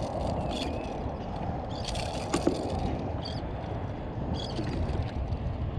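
Wind rumbling on the microphone and small waves lapping around a kayak, steady throughout, with a few brief sharp splashy sounds about two seconds in and again past four seconds.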